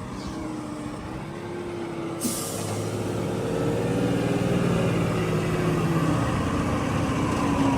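Mahindra tractor's diesel engine running and gradually revving up, growing louder and higher. A short sharp hiss comes about two seconds in.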